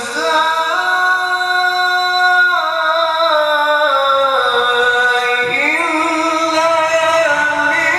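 A man's solo voice reciting the Quran in the melodic tilawah style, amplified through a microphone. He holds long drawn-out notes that slide slowly down in pitch, takes a brief pause about five and a half seconds in, then starts a new rising phrase.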